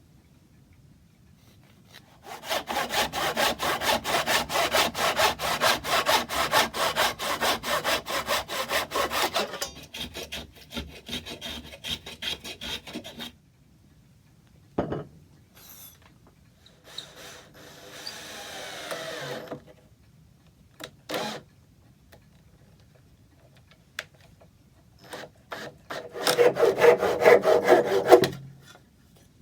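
Hand saw cutting through a piece of oak in rapid, even strokes for about seven seconds, then slower strokes, followed by a few knocks and a shorter bout of sawing near the end.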